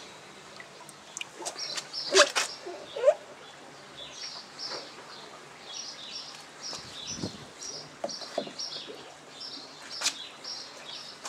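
A small bird chirping over and over in short high notes, with a few sharp, sudden knocks about two and three seconds in that are louder than the birdsong.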